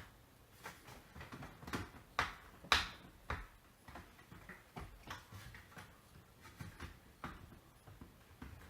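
Hard drive mounting screws being put in and tightened on a surveillance DVR: a string of irregular light clicks and taps, most distinct in the first three seconds or so, then fainter.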